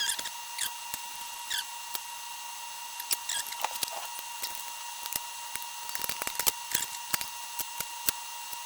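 Small clicks and light taps of tools and plastic parts being handled while fitting a replacement axle carrier on an RC truck, with a few brief squeaks that drop quickly in pitch, over a steady faint high whine.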